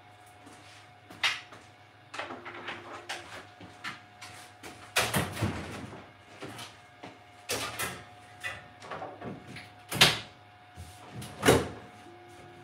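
Knocks, bumps and clatters of objects being handled, shifted and set down, with sharp bangs about five, ten and eleven and a half seconds in, over a faint steady hum.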